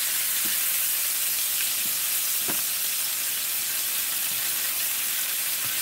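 Sirloin steaks frying in butter in a hot pan: a steady high sizzle, with a few faint clicks.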